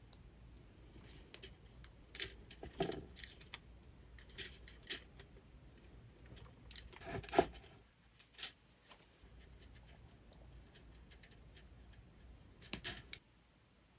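Jewelry pliers and flush cutters clicking and snipping on copper wire as wrapped loops are formed, with a few louder snips about three, seven and thirteen seconds in.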